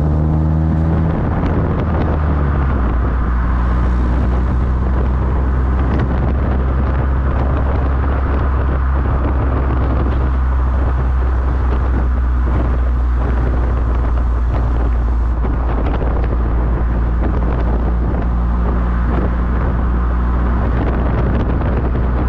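A Borla aftermarket exhaust on a 2010 Toyota Corolla XRS's 2.4-litre four-cylinder, heard right at the tailpipe while driving, with wind and road rush. The exhaust note climbs slightly, drops about a second in, then holds a steady low drone.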